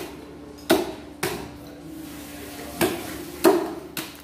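Meat cleaver chopping a whole cooked duck into pieces on a paper-covered table: about six sharp chops at an uneven pace.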